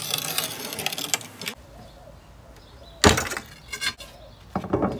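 A manual rail tile cutter's scoring wheel scratches along a wood-look tile plank for about a second and a half. About three seconds in, a single sharp crack comes as the tile is snapped along the score line, followed by a couple of lighter knocks.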